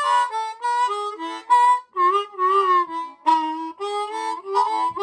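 Easttop ten-hole diatonic harmonica in A, played with cupped hands: a short phrase of separate notes and chords, with a wavering held note about two seconds in.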